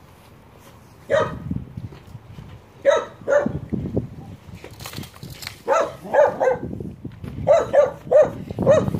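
A dog barking in short groups: a single bark, then a pair, then runs of three and four, about ten barks in all.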